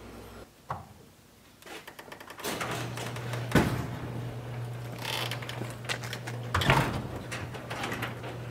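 A garage walk-in door being handled and pulled shut: a few sharp knocks and thumps, the strongest about three and a half and about seven seconds in, over a steady low hum.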